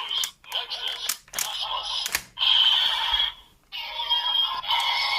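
Ultraman Z Riser toy playing electronic music and sound effects through its small speaker, broken by several sharp clicks and short gaps. This is its finishing-move sound for the Mebius, Nexus and Gauss medals fused, set off by a long press.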